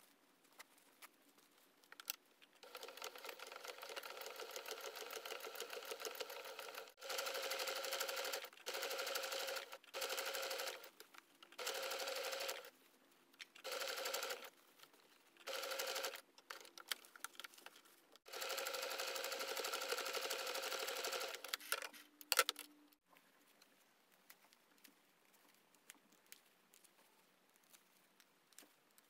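Domestic electric sewing machine stitching fabric. It runs steadily for about four seconds, then in six short bursts of about a second each with pauses between, then in one more run of about three seconds before it stops. A brief sharp sound follows just after it stops, and the last several seconds are quiet.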